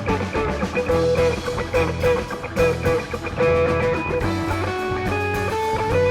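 Background music: a live rock jam with electric guitar playing lead lines over a steady bass.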